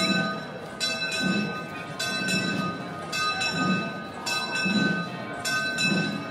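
Church bells ringing, struck in a steady rhythm about once a second, each stroke's tone hanging on into the next.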